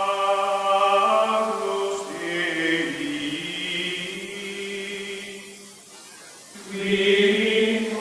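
Outro music: a choral chant of long held notes that change pitch slowly, fading briefly and then swelling again near the end.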